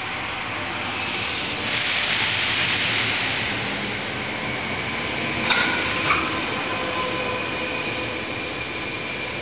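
Sanyo Electric Railway 3000 series train pulling out and running past on the platform track. Its running noise swells about two seconds in, and two sharp clacks come a little over half a second apart past the middle.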